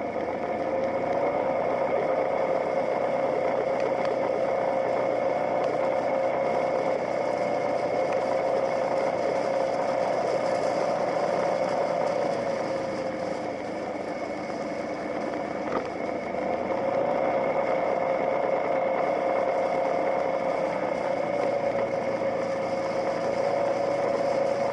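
Motorcycle engine running steadily while riding, easing off for a few seconds a little past halfway and then pulling again.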